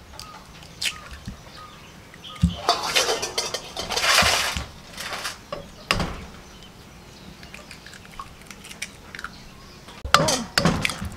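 Duck eggs being tapped and cracked on the rim of a glass bowl and set down on a metal tray. There are scattered sharp knocks and clinks, a longer noisy stretch a few seconds in, and a quick cluster of knocks near the end.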